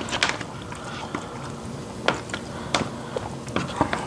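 Eating sounds: spoons clinking and scraping against a shared bowl of rice, a dozen or so scattered short clicks, with chewing in between.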